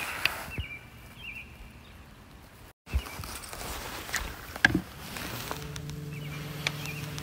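A few knocks and taps, then about halfway through a rebuilt 36-volt Minn Kota Ultrex electric trolling motor starts and runs with a steady low hum on its water test.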